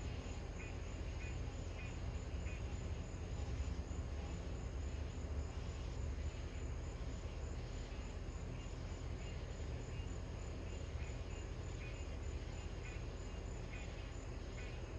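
Insects chirping in a steady rhythm, a little under two short high chirps a second, fading in the middle and clearer again near the end, over a continuous low rumble.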